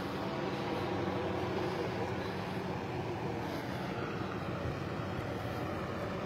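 Steady drone of a helicopter flying overhead.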